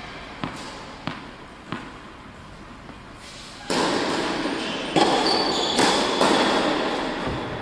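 A tennis ball bounced three times on an indoor hard court before a serve, about two-thirds of a second apart. Then a louder rushing noise sets in suddenly, with the racket striking the ball on the serve about five seconds in, a couple more knocks, and short high squeaks.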